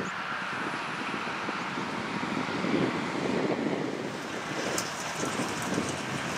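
Farm machinery engines running steadily in a silage field, with wind buffeting the microphone. A faint high crackle joins about two-thirds of the way in.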